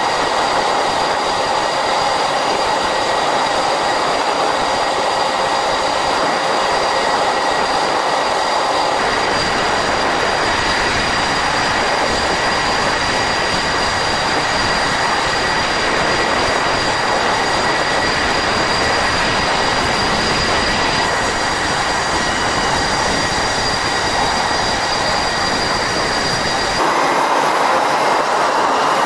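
Jet engines of F/A-18 Hornet-family aircraft running steadily on a carrier flight deck: a loud rushing noise with high steady whining tones. The sound changes abruptly several times, near the end becoming brighter with less low rumble.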